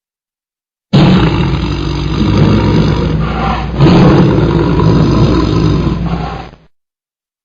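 Tiger roaring: a loud, rough, low roar that starts about a second in, swells again partway through, and cuts off abruptly near the end.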